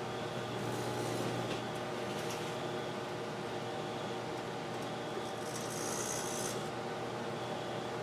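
Kenmore microwave oven running: a steady low hum with a rasping noise over it, and a brief high hiss a little past halfway through.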